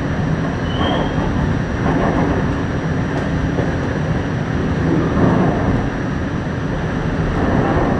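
Pullman-Standard R46 subway car running along the track, heard from inside: a steady rumble of wheels on rails and the running gear. A brief faint high squeak about a second in.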